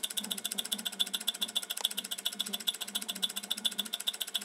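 Home-built transistorless PC-fan motor running, a rapid, very even ticking buzz.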